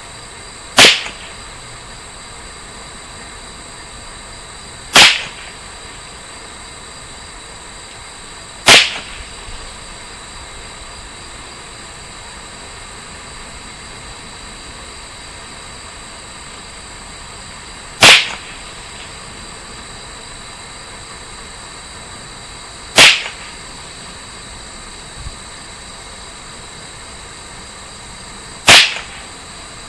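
Six single shots from a Ruger 10/22 semi-automatic .22 LR rifle firing CCI Standard Velocity rounds, fired one at a time at uneven gaps of about four to nine seconds. Each shot is a short, sharp report with a brief tail.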